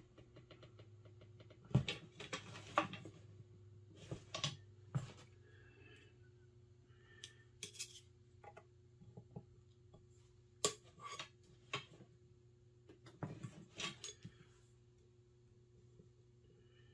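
Scattered clinks and knocks of metal air-rifle parts being handled as the valve assembly is worked further into the rifle's tube, over a steady low hum.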